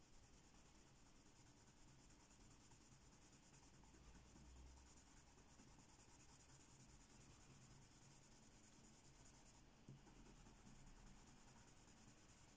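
Faint scratching of a Giorgione coloured pencil shading a swatch back and forth on cheap photocopy paper.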